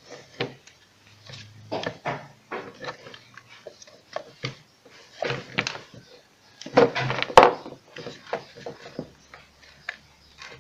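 Irregular clicks and knocks of a 35-microfarad capacitor being handled and fitted into a submersible water pump's housing, with a louder cluster a little past halfway ending in one sharp click.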